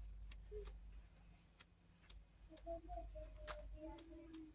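Quiet handling of a paper pad, with scattered faint clicks and light taps at irregular moments as the pages are turned, over a low steady hum.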